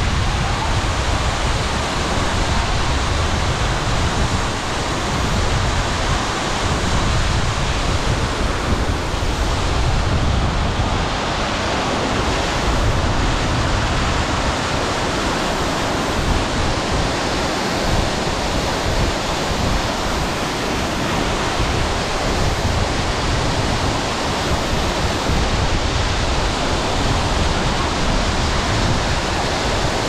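Mountain waterfall pouring down over rocks: a loud, constant rushing noise that does not let up.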